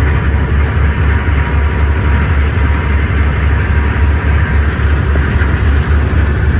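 Ocean-going tug under way: a loud, steady low rumble from its engines and propeller wash, with rushing water and wind over the open stern deck.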